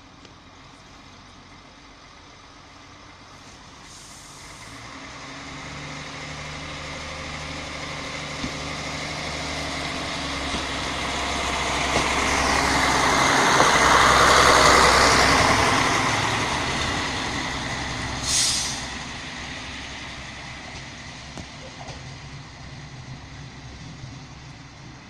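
Passenger train departing and passing close by: its drive builds as it accelerates, rises to a rush of wheel and running noise as it goes past about halfway through, then fades away. A short hiss about three quarters of the way in.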